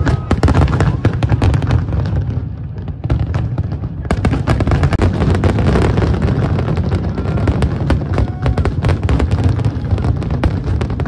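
Aerial fireworks display: dense, rapid cracks and bangs over a continuous low rumble. It eases briefly about two to three seconds in, then builds again.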